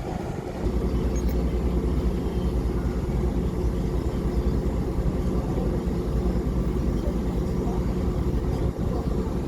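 An engine running steadily, a low, rough drone that gets a little louder about half a second in.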